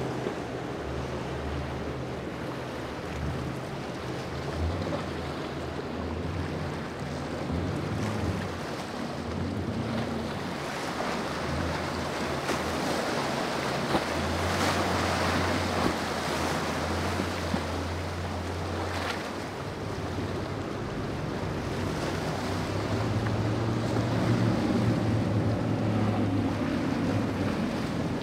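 Wind and surf with wind buffeting the microphone, under the low drone of boat engines running, its pitch shifting now and then.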